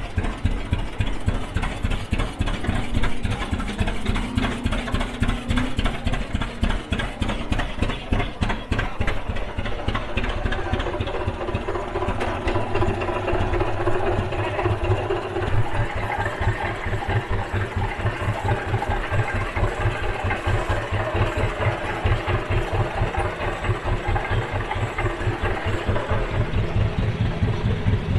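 Three Rumely OilPull 16-30 two-cylinder tractor engines belted together and running under load on a pony brake, with a steady, even exhaust beat.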